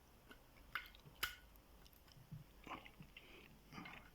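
Near silence, with a few faint short clicks, the clearest about a second in.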